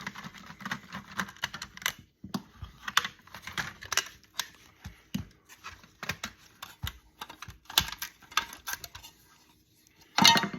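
Irregular small clicks and rattles of plastic and metal parts being handled as an electronic device is taken apart by hand, with a louder clatter near the end.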